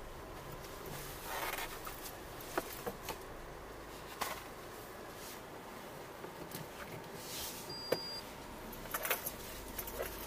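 Scattered small clicks and rustles of objects being handled, with a short, high electronic beep about eight seconds in.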